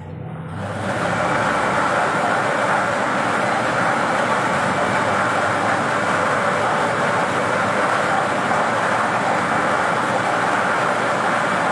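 Air-mix lottery draw machine starting up about a second in, then running steadily as its blower churns the numbered balls around the clear chamber.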